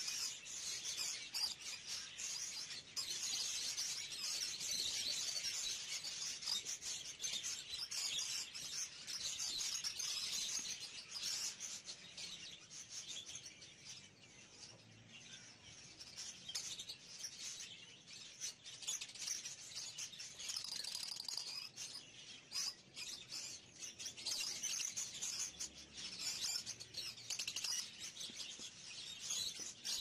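Caged budgerigars chirping and chattering in a dense, continuous high twitter that eases off somewhat through the middle and picks up again.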